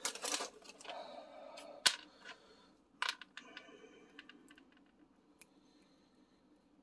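Small plastic clicks and taps from handling a Lego-brick mold box and an X-Acto craft knife, with rustling from a pouch at first. One sharp click about two seconds in, then a few scattered light clicks as the blade works at the silicone mold's edge.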